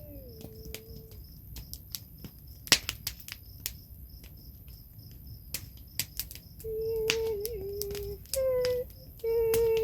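Crickets chirping steadily, with sharp irregular crackles of a wood fire. A held wordless sung note fades out just after the start, and from about seven seconds in a woman sings long wordless notes in short phrases.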